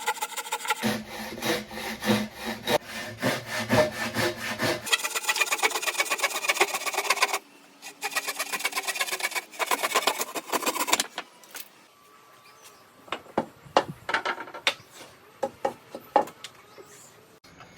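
Wood being worked by hand with rapid back-and-forth rubbing strokes, the sound changing abruptly every few seconds, then a quieter stretch of scattered sharp taps and clicks.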